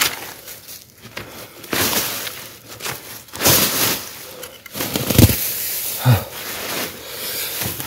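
Hand hoe digging into dry, crumbly soil: irregular scraping and crumbling with rustling of sweet potato vines and roots, and a couple of dull thumps as the blade strikes the ground past the middle.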